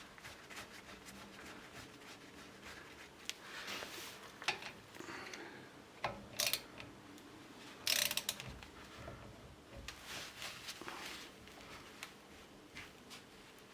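Ratchet wrench clicking in short runs while the banjo bolt on the brake caliper is tightened, with scattered metal taps and clinks.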